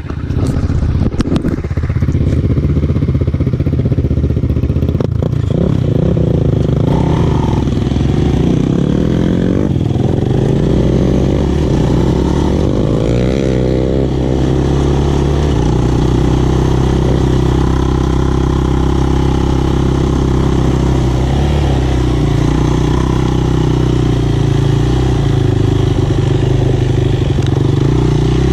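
Single-cylinder four-stroke sport quad engine running under way, its pitch rising and falling as the throttle is worked, with a few knocks in the first seconds.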